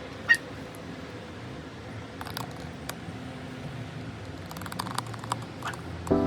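Marker pens and their caps being handled on a drawing desk: scattered light clicks and taps, with a quick run of clicks near the end, over faint room noise.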